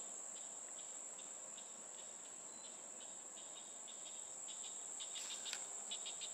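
Insects chirping in the grass: a steady high-pitched trill with quicker, repeated chirps just below it that get busier toward the end. A few faint rustles of plastic packaging come near the end.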